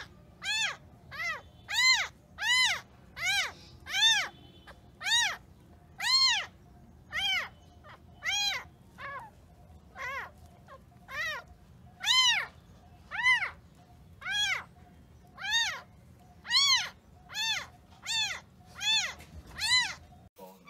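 Young kitten mewing over and over: short, high-pitched cries, more than one a second, each rising and then falling in pitch.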